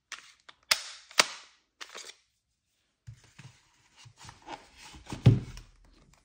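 Tokyo Marui Desert Eagle .50 AE gas blowback airsoft pistol being handled: a series of sharp metallic clacks in the first two seconds, then softer knocks and rustles, with one louder thump about five seconds in.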